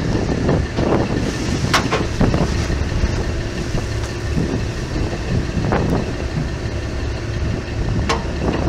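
Boat engine idling with a steady low rumble, with a few sharp clicks or knocks about two, six and eight seconds in.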